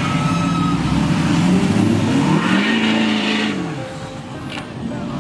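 Pickup truck engine revving hard under load while a truck is pulled through soft sand. The pitch climbs for about two and a half seconds, holds briefly, then drops as the throttle eases off.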